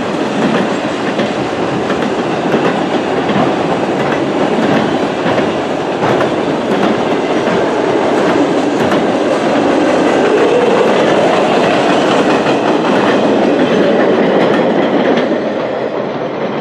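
Freight train of enclosed autorack cars rolling past on steel wheels: a steady rolling rumble with repeated clicks of wheels over the rail joints. The sound eases off near the end as the last car goes by.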